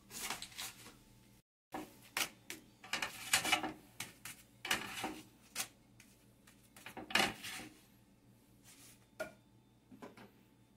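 A spatula scraping and tapping on a flat steel comal as a flour tortilla is turned, pressed and lifted off: an irregular string of short clatters and scrapes. The sound cuts out completely for a moment about a second and a half in.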